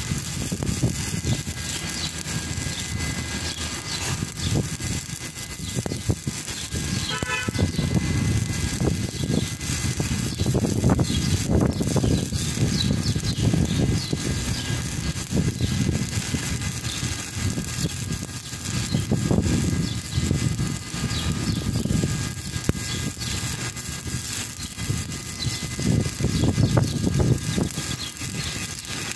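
Stick (shielded metal arc) welding: the electrode's arc crackling steadily and without a break as the weld is run.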